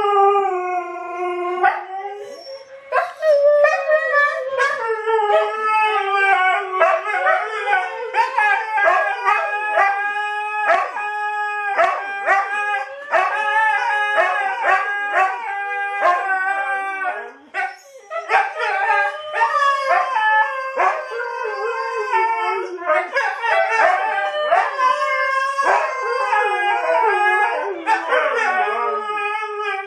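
Siberian huskies howling together: several long, overlapping howls at different pitches that glide up and down, with brief lulls about two seconds in and a little past halfway.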